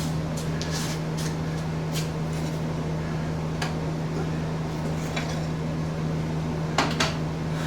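A steady machine hum, with scattered light clicks and knocks of things being handled and two sharper knocks near the end.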